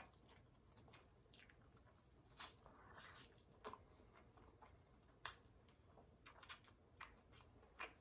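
Faint close-up chewing: a person eating with the mouth near the microphone, with a handful of soft, irregular wet smacks and clicks.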